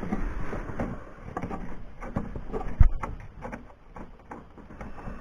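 Irregular clatter of knocks and clicks from tools and parts being handled, with one heavy thump nearly three seconds in.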